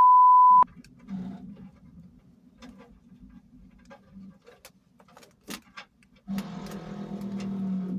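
A loud, pure bleep tone lasting about two-thirds of a second at the start, then faint metallic clicks and taps of brass compression fittings and tools being handled over a low hum. For the last couple of seconds a louder, steady hissing buzz comes in.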